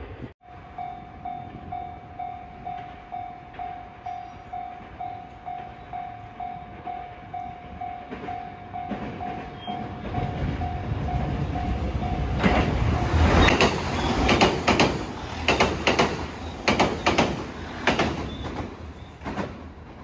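Japanese level-crossing alarm bell ringing, a tone repeating a little over twice a second, then a train approaching with a rising rumble and passing over the crossing for about seven seconds, its wheels clacking over the rail joints in pairs.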